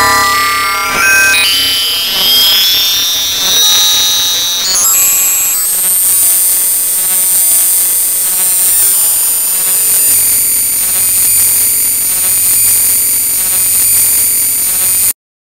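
Synthetic electronic sound from a Max/MSP Jitter patch: an audio buffer rotated as an image matrix by jit.rota and looped by groove~, its sound changing as the rotation angle is raised. Layered tones swell about once a second and climb in steps into shrill, steady high tones over a hiss, then cut off suddenly near the end.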